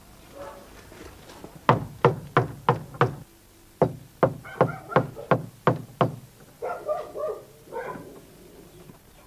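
Knocking on a weathered wooden plank gate in two rounds, about five quick knocks and then about seven, roughly three a second. A brief vocal sound follows near the end.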